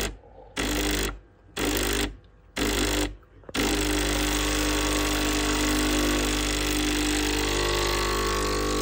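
Breville Barista Express espresso machine's vibratory pump running dead-headed against a blank backflush disc at full pressure, a steady buzzing hum. It cuts out briefly four times in the first few seconds, then runs on steadily.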